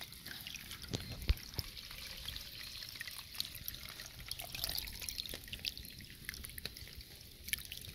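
Rainwater trickling and bubbling out of a buried corrugated downspout drain pipe at its outlet, a continuous fine crackle of small splashes and popping bubbles. There is a soft knock about a second in.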